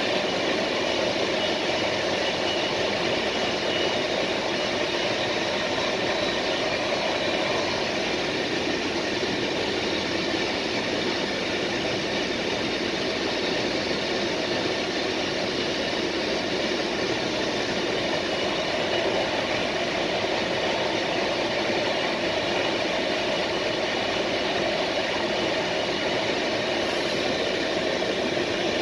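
Passenger train coach running at speed, heard from inside at the rear of the train: a steady rolling rumble of wheels on rail with a faint whine, without regular rail-joint clicks.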